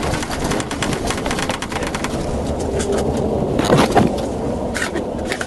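Road and tyre noise of a patrol car slowing onto a highway shoulder, with a scatter of small clicks and crackles throughout. About three and a half seconds in, a louder rush as a tractor-trailer passes close by in the next lane.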